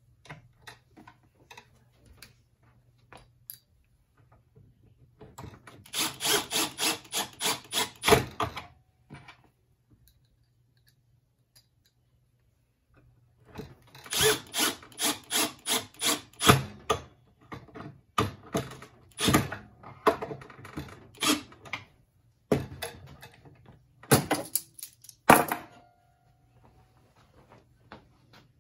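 Milwaukee cordless drill driving pocket-hole screws into a clamped wooden corner joint: two runs of a few seconds each, pulsing about three or four times a second as each screw goes in. Several separate sharp knocks follow.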